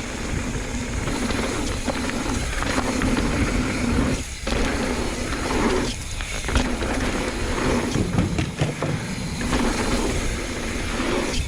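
Mountain bike riding down a dirt trail: a constant loud, noisy rush of tyres, rattle and air, with a low hum that drops out briefly a few times.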